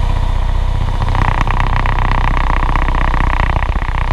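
Cessna 172's piston engine and propeller running with a steady, loud drone, heard through the cockpit intercom. A brighter hiss comes in about a second in and fades before the end.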